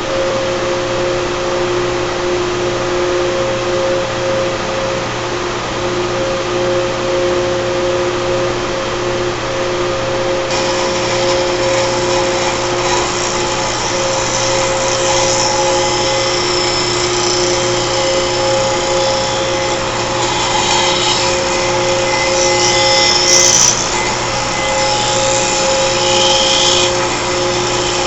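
Carrier 30HX screw chiller's screw compressors running under load, a steady machine noise with two held tones over a broad hiss. The hiss turns brighter about ten seconds in, with a brief louder moment near the end.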